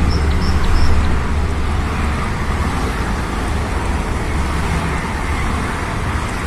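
Steady low rumble of road traffic, with a few short high chirps in the first second.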